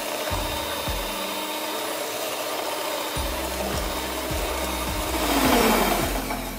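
Electric hand mixer running steadily, its beaters whisking eggs and sugar in a bowl until the mixture turns pale and fluffy; the whirring swells a little about five seconds in.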